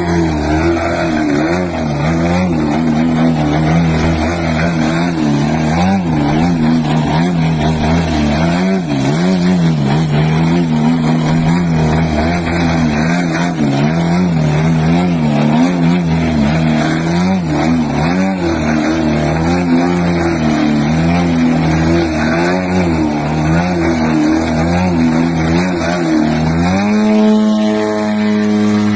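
Engine of a large radio-controlled aerobatic model plane held in a nose-up hover, its pitch wavering up and down as the throttle is worked. Near the end the engine opens up to full throttle and the pitch rises sharply as the plane climbs away.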